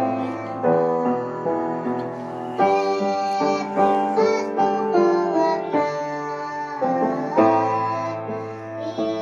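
Instrumental keyboard music: a melody over sustained chords that change every second or so.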